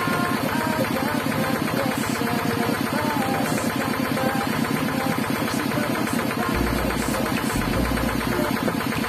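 A coconut half being scraped rapidly against the serrated blade of a bench-mounted coconut grater (kudkuran). It makes a fast, even rasping that sounds like a small engine running.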